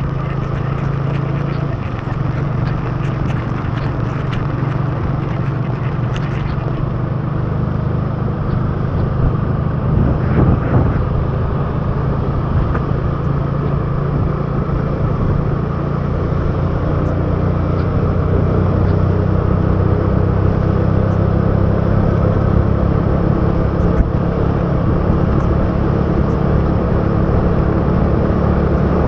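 Motorcycle engine running steadily at riding speed, mixed with wind rush and tyre hiss on a wet road; the engine note shifts briefly about ten seconds in.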